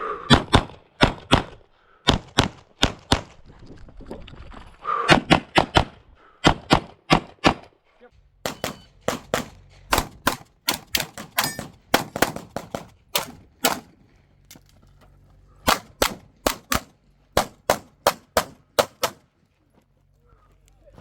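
Rapid 9mm pistol fire from a Glock 45 shooting a USPSA stage: dozens of shots, mostly in quick pairs and short strings, broken by brief pauses, with a short quiet gap about four seconds in and another near the end.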